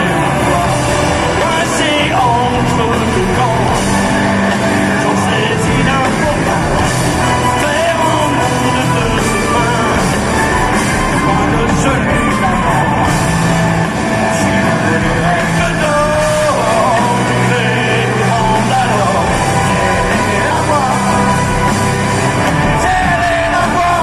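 Live rock band playing with a singer on microphone, loud through the stage PA.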